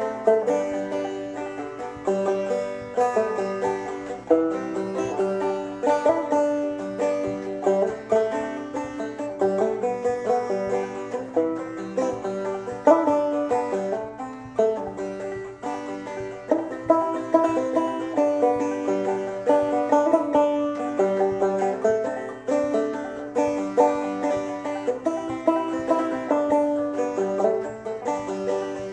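Banjo played clawhammer style: a steady, rhythmic stream of plucked melody notes and brushed strums, played as an unaccompanied old-time tune.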